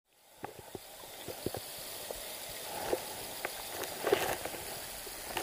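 Quiet outdoor ambience at the water's edge: a faint steady hiss with scattered light clicks and taps. It begins after a brief dead silence at the start.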